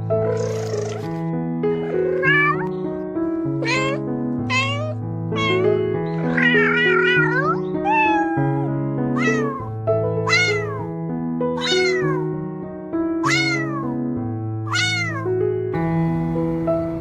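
Cat meowing over slow background music of sustained notes: about a dozen short meows, each rising then falling in pitch, with one longer wavering meow about six seconds in. The meows stop near the end, leaving only the music.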